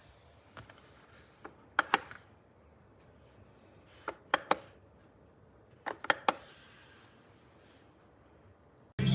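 Three short clusters of sharp clicks or taps, two or three in each, about two seconds apart; loud rock music cuts in at the very end.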